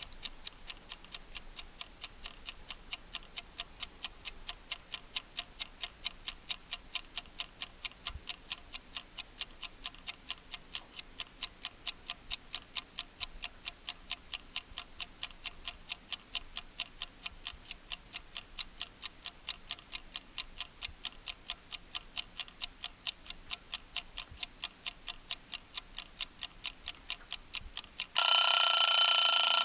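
Timer ticking steadily and rapidly, about four ticks a second, then near the end it goes off with a loud, steady ringing alarm tone: time is up.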